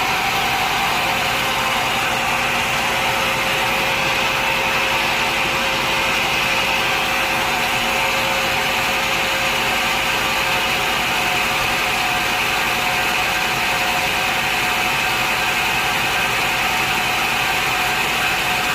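Sawmill running steadily, a loud even mechanical drone with a constant whine over it, typical of a saw cutting through a log.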